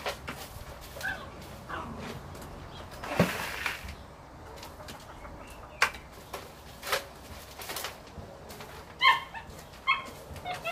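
Backyard hens clucking in short calls, the loudest about nine seconds in, over scattered sharp knocks and a scrape from sweeping and bucket handling in the run.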